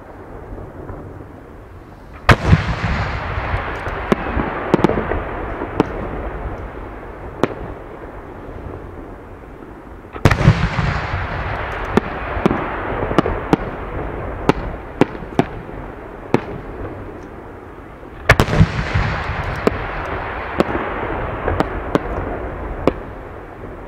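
Aerial firework shells bursting: three loud booms about eight seconds apart, each followed by scattered sharp pops and a rushing sound that fades away over several seconds.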